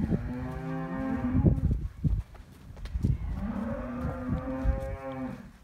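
A cow mooing twice: two long, drawn-out calls with a pause of about a second between them.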